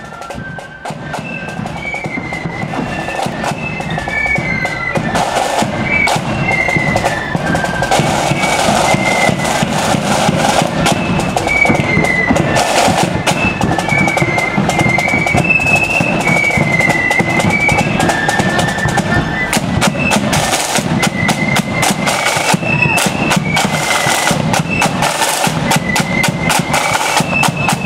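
Marching flute band playing a tune over rattling side drums and a bass drum, getting louder over the first few seconds as it approaches, then steady.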